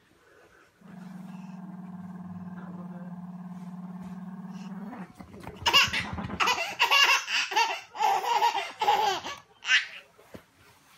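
A dog growls steadily for about four seconds during play, then a baby laughs in loud bursts for several seconds.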